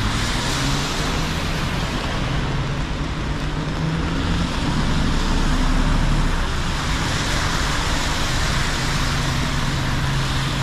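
Heavy rain falling steadily, with a low, steady engine hum underneath, as from motor traffic.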